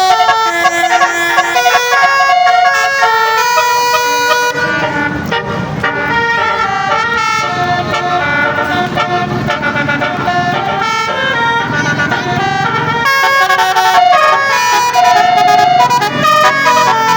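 Indonesian bus 'telolet' basuri horns, multi-note musical horns, playing quick melodies note after note. From about four seconds in until about thirteen seconds a low rumble sits under the tunes.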